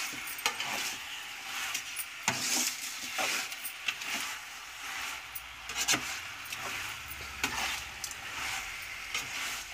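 Raw chicken pieces sizzling in a large metal pan while a metal spatula stirs them, knocking and scraping against the pan several times.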